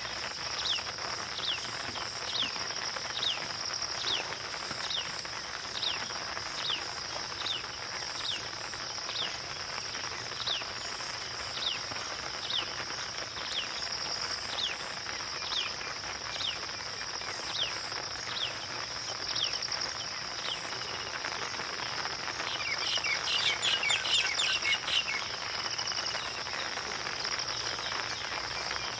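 A bird repeats a short, falling whistle a little more than once a second over a steady, high insect drone. A little past the middle, a burst of rapid chirping from another bird takes over.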